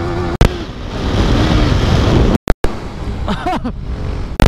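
Wind rushing over the camera's microphone as a KTM RC single-cylinder sport bike rides along, with its engine running underneath. There are a couple of sharp clicks, and the sound drops out for an instant about two and a half seconds in.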